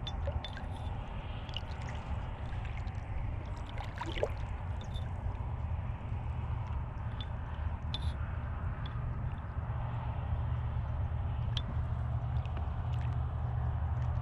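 Water gurgling and dripping around a kayak over a steady low rumble, with scattered small clicks and one brief rising squeak about four seconds in.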